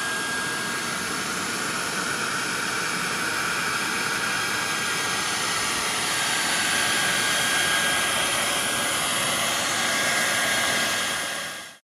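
Handheld household hair dryer running steadily: a rush of blowing air with a thin steady whine, growing a little louder after about six seconds and cutting off abruptly near the end.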